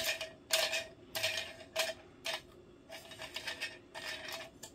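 Hard plastic toy parts, a salon chair and its stand, clicking and knocking together in the hands as the chair is threaded onto the stand. Several sharp irregular clicks come in the first two seconds or so, then fainter ticks and rattles.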